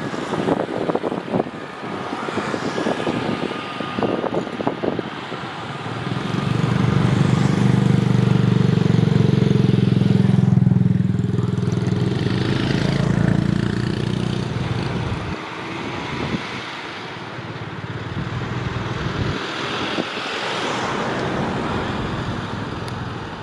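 Airbus A320neo jet engines running at taxi power as the airliner rolls past. The engine sound swells to its loudest about a third of the way through, then slowly fades. Wind buffets the microphone in the first few seconds.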